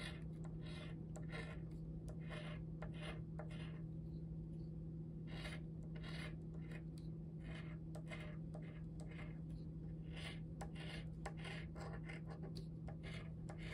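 Scratch-off lottery ticket being scratched: short, irregular scraping strokes in quick runs, with a couple of brief pauses, over a steady low electrical hum.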